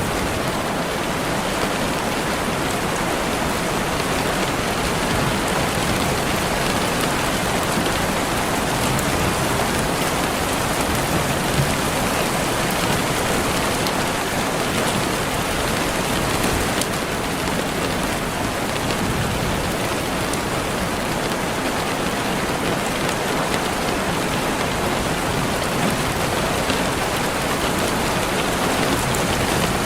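Steady rainfall on a surface, an even dense hiss with faint scattered drop ticks.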